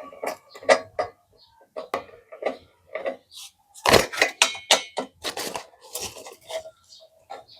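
Screwdriver and metal parts of a single-burner gas cooker clinking and clattering irregularly as the cooker is taken apart, with the busiest, loudest clatter about four seconds in.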